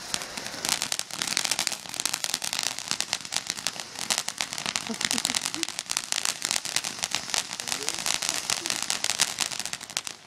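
Small ground fountain firework spraying sparks, with a dense, rapid crackle over a steady hiss. It cuts off suddenly near the end.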